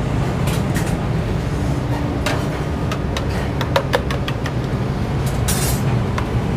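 Steady low rumble of commercial kitchen equipment running, with a few light clicks and knocks of utensils; one sharper knock comes a little under four seconds in.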